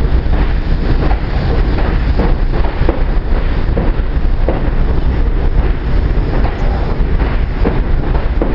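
R62A New York City Subway train running along the platform: a loud, steady rumble of steel wheels on rail with scattered clicks as the wheels cross rail joints, and wind buffeting the microphone.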